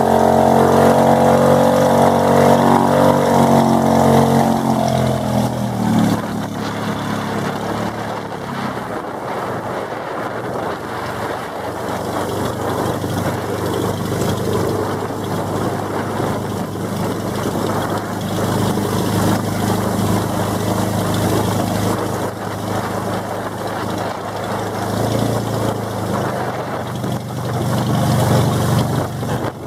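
Engine of a motorized outrigger boat running, its note dropping and fading about five seconds in. After that a steady rush of wind and water, with the engine still humming low underneath.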